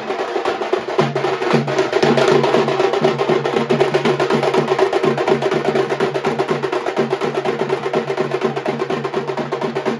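A banjo party, a wedding band of drums with a melody instrument, plays fast, dense drum-led music: a quick steady drumbeat under a held melody.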